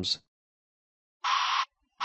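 A bbs-tek white sound reversing alarm gives one short hissing "shh" pulse of white noise, with no tone in it, about a second and a quarter in, after a second of silence.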